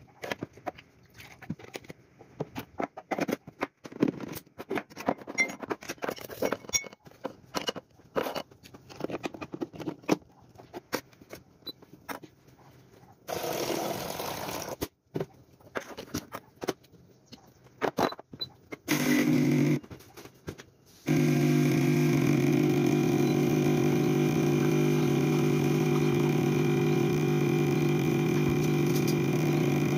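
Clicks, knocks and scraping of an espresso machine's portafilter being handled and locked in. Then the machine's pump starts with a short burst about nineteen seconds in, and from about twenty-one seconds it runs as a steady hum while a shot of espresso brews into the mug.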